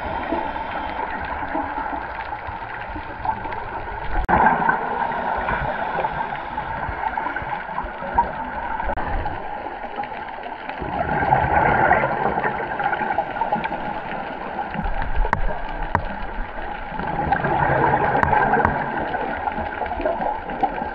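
Scuba diver breathing underwater through a regulator: exhaled bubbles gurgle up in about three swells, some six seconds apart.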